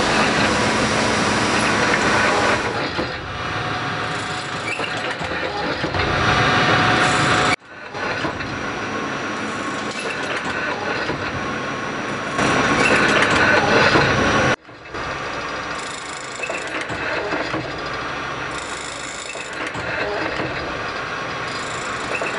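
Wickman 626 multispindle automatic lathe running while cutting a part, a dense, steady mechanical noise with a faint steady hum in it. It breaks off abruptly twice, about a third and two-thirds of the way through, and resumes at once.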